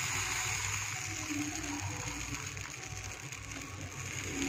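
Wheat-rava adai batter sizzling as it is ladled onto a hot dosa tawa, a steady soft hiss.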